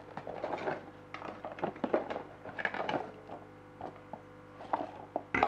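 Handling noise from unpacking a small hang-on-back aquarium filter: cardboard box and plastic parts rustling and clattering as the filter unit and its power cord are lifted out, with a sharp knock near the end.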